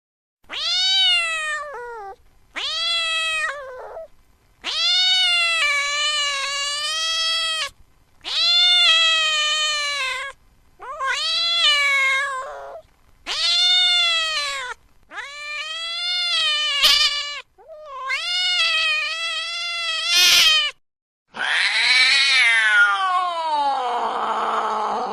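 A cat yowling in about nine long, drawn-out caterwauls, each rising and then falling in pitch, with short pauses between them; the last call slides steadily down from high to low. These are the aggressive yowls of an angry cat.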